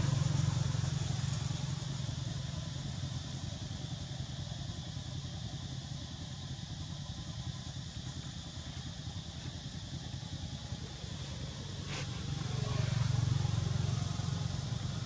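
Low steady rumble of distant motor traffic, swelling louder near the start and again about two-thirds through, with a single sharp click just before the second swell.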